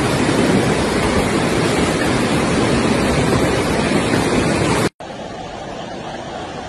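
Floodwater torrent rushing down a street, a loud, steady rush of water. About five seconds in it cuts abruptly to a quieter rush of water flowing along a pavement.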